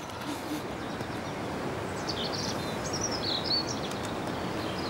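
Outdoor ambience: a steady hiss of background noise, with a few short bird chirps around the middle.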